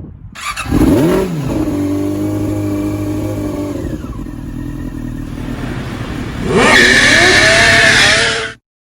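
Yamaha R6 motorcycle engine revving: a quick rise and fall in pitch about a second in, a steady run with the pitch slowly dropping, then a louder rise in revs near the end before the sound cuts off suddenly.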